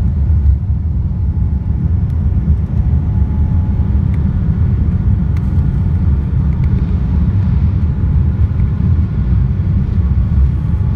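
Steady low rumble inside the cabin of a Boeing 787-9 airliner rolling along the ground.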